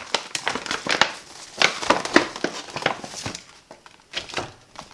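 Paper packaging rustling and crinkling in irregular bursts as a paper gift bag and its wrapping are handled and opened.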